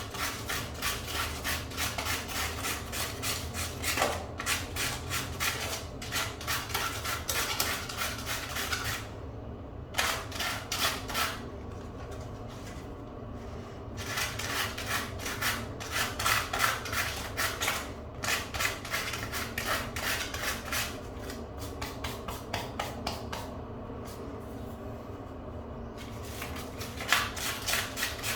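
Sandpaper rubbed quickly back and forth on a bicycle inner tube, roughening the rubber around the puncture before glue and patch go on. The strokes come several a second in runs, with short pauses between.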